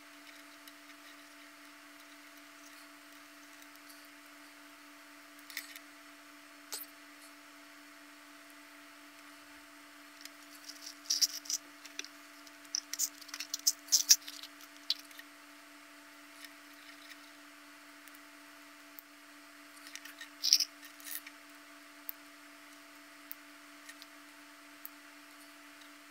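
Small plastic twisty-puzzle parts clicking and rattling as they are handled and fitted together, in scattered sharp clicks. A few separate clicks come first, then a dense run of clicks in the middle and a shorter run later, over a faint steady hum.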